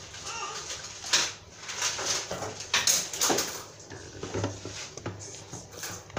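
Silicone spatula folding flour into whipped egg batter in a stainless steel mixing bowl: irregular scraping and wet folding strokes against the bowl, a few louder ones about a second in and around three seconds in.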